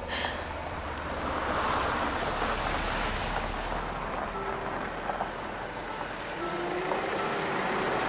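Cars driving up a paved lane, an Opel Astra in front: a steady rush of engine and tyre noise that sets in suddenly.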